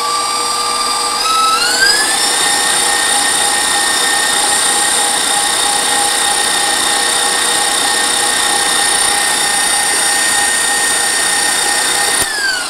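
Electric mixer beating cheesecake filling of cream cheese, eggs and sweetener: its motor runs with a steady whine, shifts up to a higher speed about a second and a half in, and winds down when switched off near the end.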